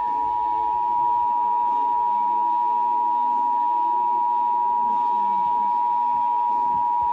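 Emergency Alert System two-tone attention signal: two steady tones sounded together as one unbroken, even chord, the alarm that announces an emergency alert.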